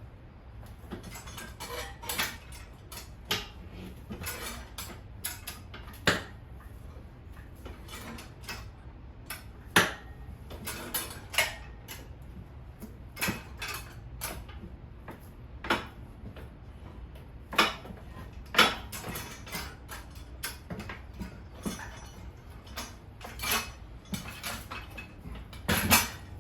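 Steel tire irons and tools clinking and knocking against a dirt bike's metal wheel rim in irregular metallic clanks, a few of them louder, as the tire is worked off and handled.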